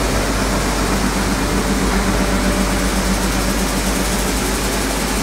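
Stone flour mill (atta chakki) plant running: the motors and grinding stones make a loud, steady machine hum with a low drone and no change in pace.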